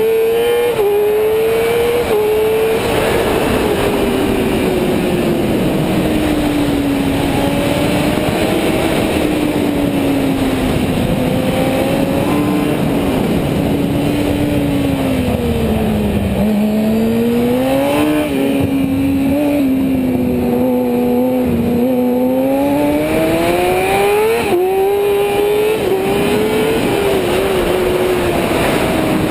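Racing motorcycle engine under hard riding, its note climbing and falling again and again with the throttle and gear changes through the corners. It dips to its lowest about halfway through, then climbs again. Steady wind rush sits on the helmet camera's microphone.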